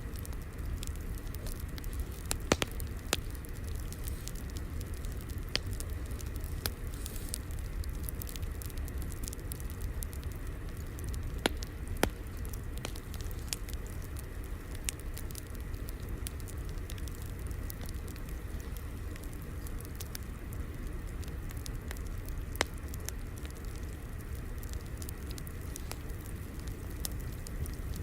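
Fire crackling: a steady low rumble with many scattered small pops and snaps, a few sharper ones standing out, two of them close together near the middle.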